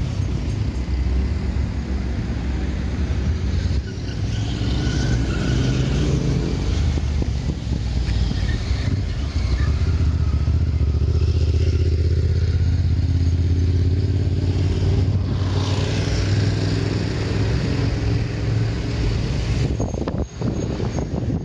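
Street traffic: a motor vehicle engine running close by, a steady low hum that swells through the middle.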